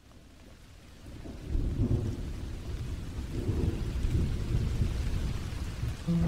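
Thunderstorm: low rumbling thunder over steady rain, fading in from silence and swelling about a second and a half in.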